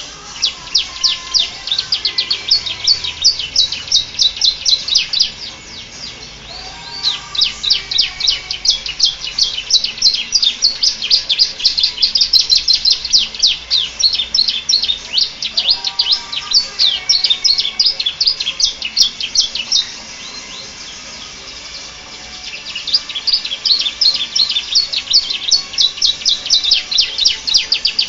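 Domestic canary singing long runs of rapid repeated high notes, in phrases copied from the bar-winged prinia (ciblek), with brief pauses between the songs.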